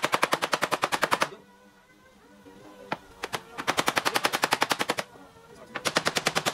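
Paintless dent repair on a car's front fender: a hammer rapidly tapping a tap-down tool to knock down high spots in the panel. The taps come in quick even runs, stopping about a second in, starting again past the midpoint after a single tap, and once more near the end.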